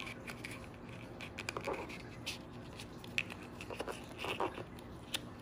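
Scattered small clicks, taps and soft rustles of hands working a doll's shoe onto its foot, toe first and then the heel.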